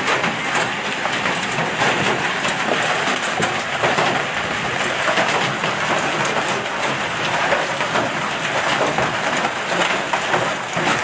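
Hail and heavy rain pelting down: a dense, steady clatter of countless small impacts.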